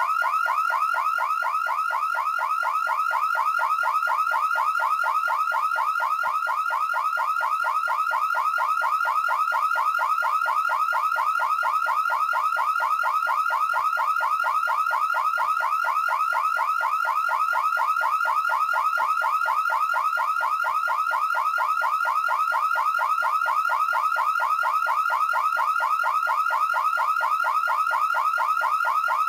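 Electronic car alarm siren warbling: a short sweep in pitch repeated rapidly and evenly, several times a second, at a steady level.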